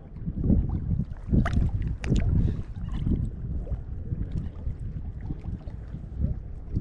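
Choppy shallow saltwater sloshing and lapping around a wade fisherman's body, with a few sharper splashes about one and a half to two seconds in, and some wind on the microphone.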